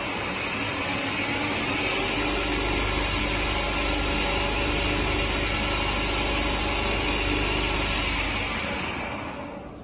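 Heavy-duty wire drawing machine running at maximum speed: a steady mechanical whir with a thin high whine and a low hum, rising over the first couple of seconds and dying away near the end as the machine slows.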